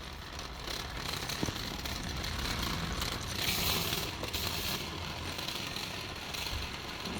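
Shopping cart rolling and rattling, with a sharp click about a second and a half in and a short hiss a little past the middle.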